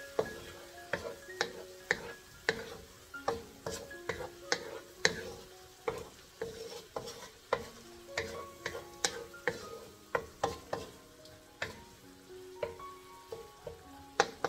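Wooden spoon stirring in a granite-coated wok, knocking and scraping against the pan about twice a second, over a soft sizzle of shrimp and sausage simmering in a little boiling water.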